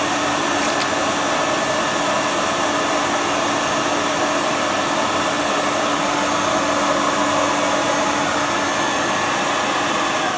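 Bissell BG10 commercial carpet cleaner running with a steady motor whine. Its solution pump is on and the auto-load gasket is held open for a pump spray test.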